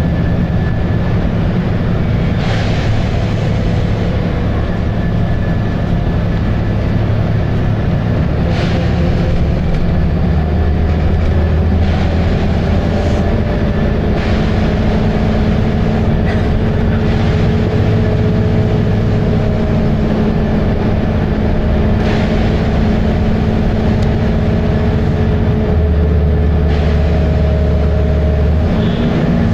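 Volvo B7RLE single-deck bus's six-cylinder diesel running steadily under way, a loud continuous drone whose pitch shifts slightly a few times, with several brief knocks or rattles along the way.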